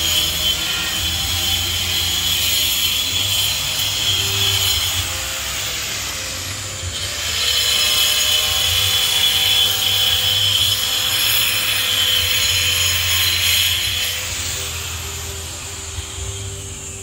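Power tool running steadily for about five seconds, easing off briefly, then running again for about seven seconds before tailing away.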